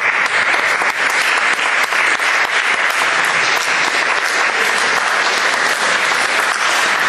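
An audience applauding steadily, a dense run of many hands clapping.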